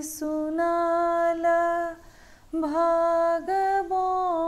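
A woman singing a Maithili sohar folk song unaccompanied, holding long drawn-out notes, with a breath pause about two seconds in.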